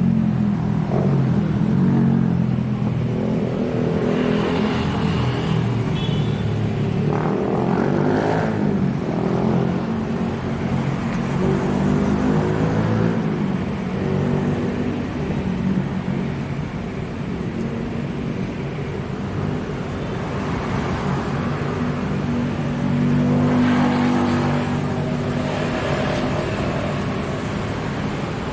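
Street traffic: vehicle engines running steadily close by, their pitch drifting slowly as vehicles idle and pass, with a swell in level a little after the middle.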